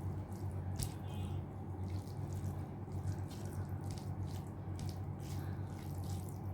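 Close-miked wet mouth sounds of someone eating rice and curry: chewing, lip smacks and small sharp clicks, over a steady low hum.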